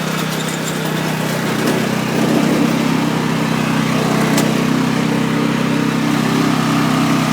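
Riding lawn mower's engine running steadily, getting a little louder about two seconds in.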